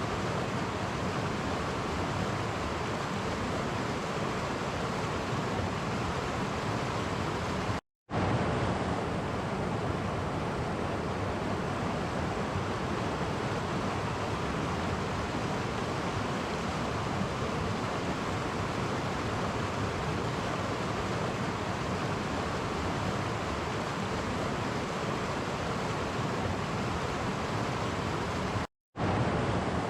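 Clear stream flowing over small cascades: a steady rushing of water. It cuts to silence for a split second twice, about eight seconds in and again near the end.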